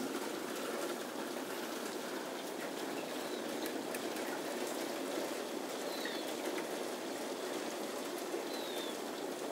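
Heavy thunderstorm rain falling steadily: an even hiss with many separate drop hits close by. A couple of faint short chirps come through about six seconds in and near the end.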